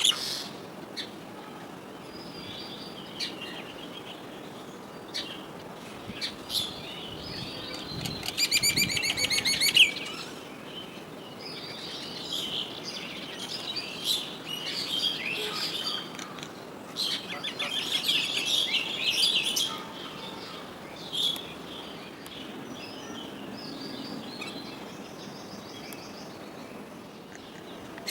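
Common mynas calling: scattered chirps and chattering phrases, with a loud run of rapid repeated notes about eight seconds in and busier chattering in the middle stretch.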